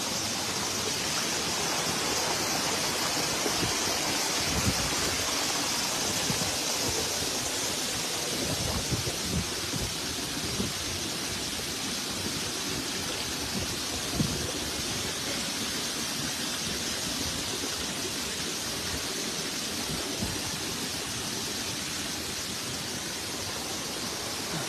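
Steady rushing noise of a large, tall waterfall, with a few short low thumps here and there.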